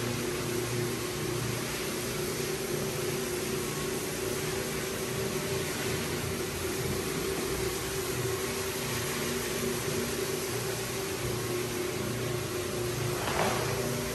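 Single-disc rotary floor buffer running steadily, its motor humming as the abrasive pad screens a hardwood floor's finish. A short burst of hiss comes near the end.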